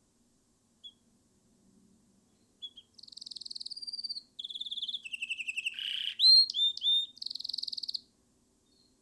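Canary singing: two short chirps, then a song of about five seconds made of rapid rolling trills and clear whistled notes, loudest towards its end before it stops.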